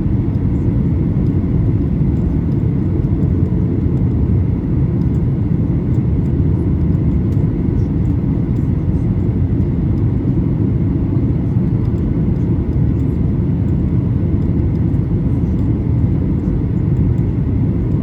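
Steady in-flight cabin drone of a Boeing 737-800: an even, low rumble of airflow and its CFM56-7B engines, with no change in level.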